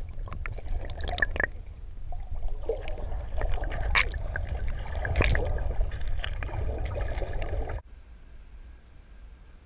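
Muffled sloshing and gurgling of river water heard through a submerged action camera, with scattered clicks and two sharper knocks about four and five seconds in. Near the end the sound drops abruptly to a quieter, even background as the camera comes up out of the water.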